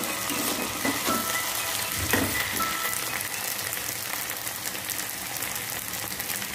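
Chopped vegetables and paneer sizzling in hot oil in a pan as they are stir-fried and stirred with a metal spatula, with a few soft knocks of the spatula against the pan.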